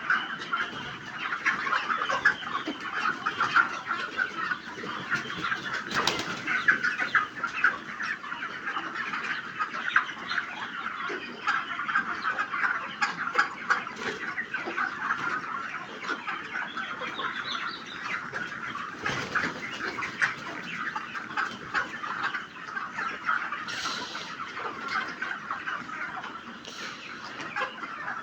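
A large flock of chickens on a poultry farm, many birds clucking and cheeping at once in a dense, continuous chatter.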